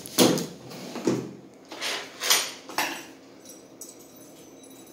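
Hard metal and plastic parts clattering and knocking as they are handled, in about five short bursts over the first three seconds, then only faint handling noise.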